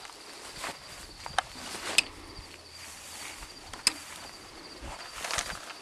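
Steady high-pitched insect trill, with scattered sharp clicks and taps from hands working wire and clamp hardware at a metal post; the loudest clicks come about two and four seconds in.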